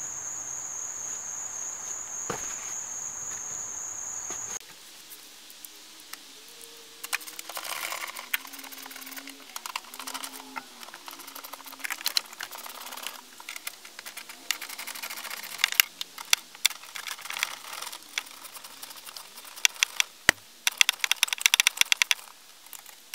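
A steady high-pitched trill that cuts off suddenly about four and a half seconds in. Then comes metallic clicking and rattling of hand tools and bolts as the bolts around the base of the gear shifter are undone. The clicks grow denser and louder near the end.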